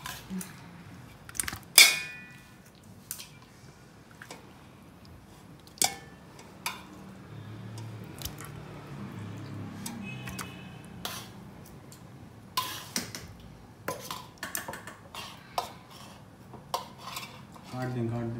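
Hammered metal cooking pot clinking and knocking as marinated chicken pieces are set into it one at a time. The loudest clink, about two seconds in, rings on briefly, and another rings around ten seconds in.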